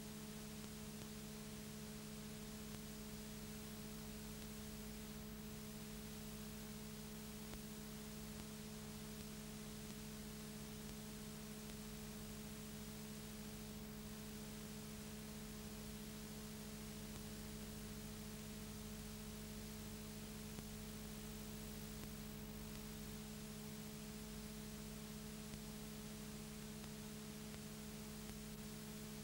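Steady electrical mains hum, several unchanging tones over a faint even hiss, with no other sound standing out.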